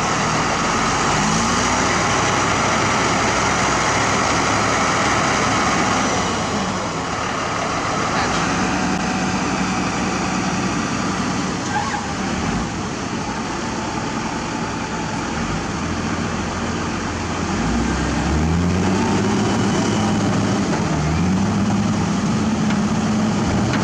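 Heavy-equipment diesel engines running, with the nearby wheel loader's engine revving up about a second in and twice more near the end.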